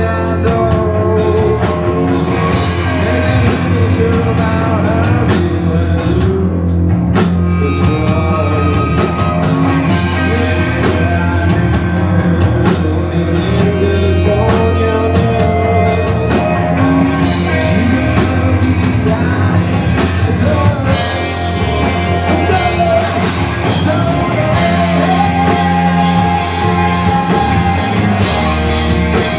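Live rock band playing loudly: electric guitars, bass guitar and drum kit, with a male singer at the microphone.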